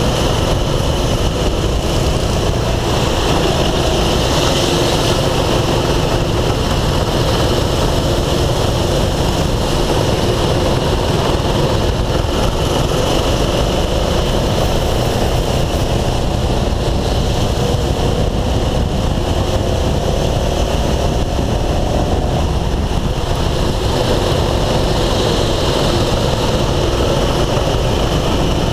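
Go-kart running at racing speed, heard from on board: a steady, loud rumble with a faint tone that rises and falls in pitch as the throttle is worked through the corners.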